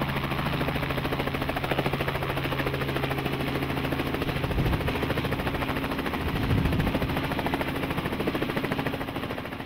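Helicopter in flight: the rotor's fast, even chopping over a steady engine drone, easing down slightly near the end.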